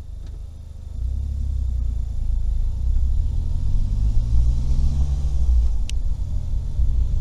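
Car engine and road rumble heard from inside the cabin, getting louder about a second in as the car picks up speed, with the engine note rising over the next few seconds.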